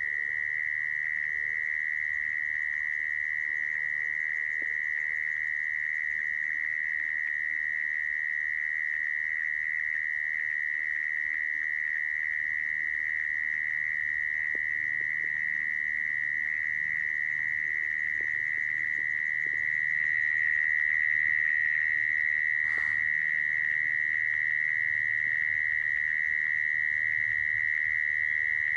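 Mole cricket call: one steady, unbroken high trill held at a single pitch, growing a little louder about two thirds of the way through. This is the call used as a lure to trap mole crickets.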